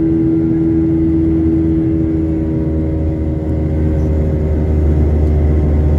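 CFM56-7B turbofan engines of a Boeing 737-900 heard from inside the cabin during the climb after takeoff: a steady, loud roar with a low rumble and a droning hum. About halfway through, the hum's pitch shifts.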